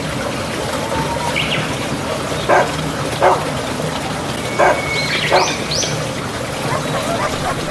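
Dog barking four short barks, spaced about a second apart, over a steady background hiss.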